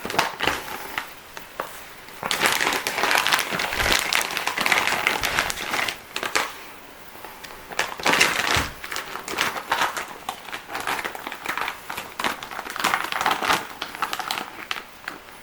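Plastic packaging being crinkled and handled, an irregular rustling with short clicks and crackles in bursts and brief pauses.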